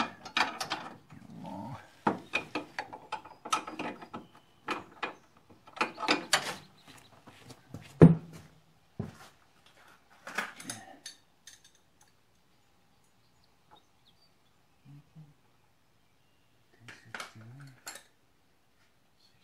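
Hand-tool work on a lawn tractor's rear drive: irregular metal clicks, ratcheting and clanks, with one sharp knock about eight seconds in. After that it goes quieter, with a last few clicks near the end.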